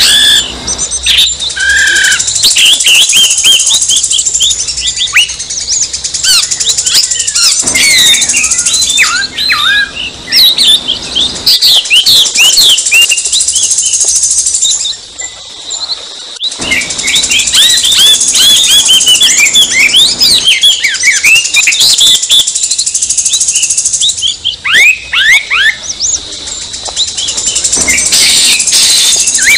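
Oriental magpie-robins (kacer) singing a dense, rapid stream of varied whistles and chirps, layered with stretches of a high hissing buzz. It is the agitated kacer song used as a lure to provoke other magpie-robins into singing.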